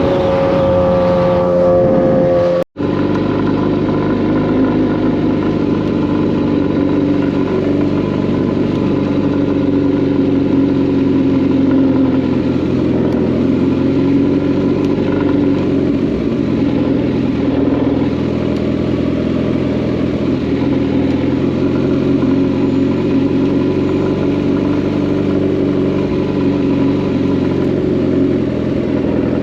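Kawasaki sportbike's inline-four engine running under way, its pitch easing down over the first couple of seconds. After a brief dropout about three seconds in, it holds a near-steady cruising pitch with only slight rises and falls.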